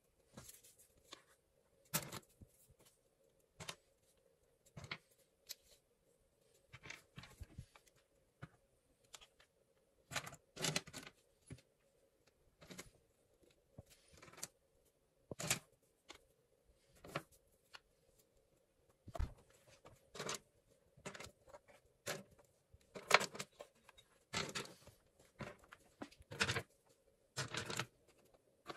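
Irregular handling noises: short clicks, knocks and rustles of objects being moved and handled, over a faint steady hum.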